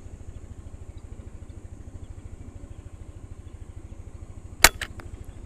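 An air rifle fires one sharp shot near the end, with a couple of faint clicks just after it, over a steady low rumble.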